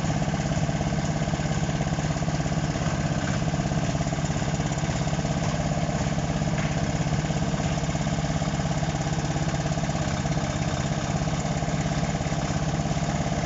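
Large backhoe's diesel engine running at a steady, even speed, a continuous low drone with no revving.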